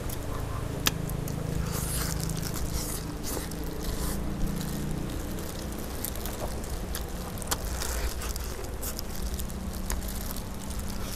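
A man eating honey-grilled chicken, chewing and pulling the meat apart with plastic-gloved hands, with scattered sharp little clicks.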